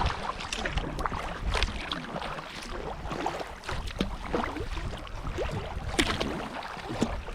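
Kayak paddling: water splashing and dripping from the paddle blades in many small irregular splashes, with wind rumbling on the microphone underneath.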